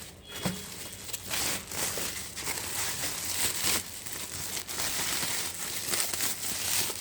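Irregular crinkling and rustling as a thin copper sheet is handled.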